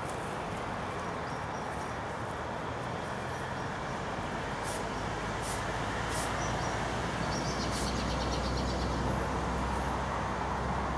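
Steady low rumble of distant road traffic, swelling slightly in the second half. A few faint clicks and a short burst of rapid high ticking sound over it around the middle.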